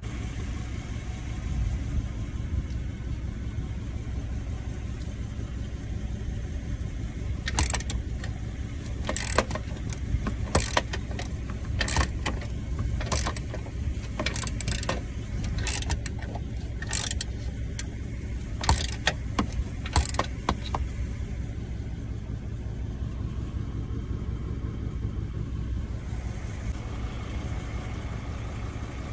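Ratchet wrench on the battery-tray bolts giving about a dozen sharp metallic clicks, roughly one a second, through the middle of the stretch. Under it runs a steady low rumble, like an engine running.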